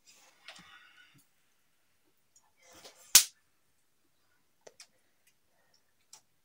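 A single sharp, loud knock about three seconds in, set among a soft rustle near the start and a few faint clicks.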